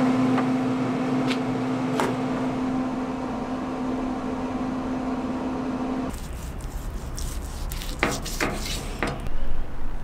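Traeger pellet grill's fan running with a steady hum, with a couple of light clicks in the first two seconds. The hum cuts off about six seconds in, leaving a quieter hiss with a few short scraping sounds near the end.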